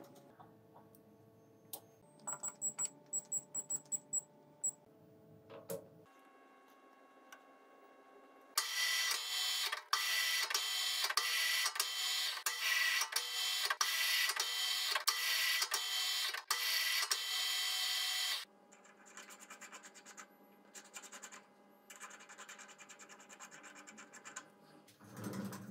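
Metal lathe running with a steady hum. About nine seconds in, a loud, scraping cutting noise starts as the tool cuts a thread into the end of a steel tube, and it stops abruptly about ten seconds later, leaving the lathe humming.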